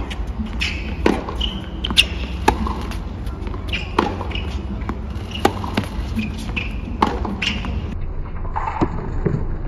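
Tennis rally on a hard court: sharp pops of the racket striking the ball and the ball bouncing, every second or so at an uneven pace, over a low steady crowd hum.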